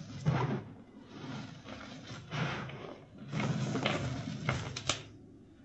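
Crumbly reformed chalk being crushed and crumbled by hand in three crunchy bursts, the last with several sharp cracks.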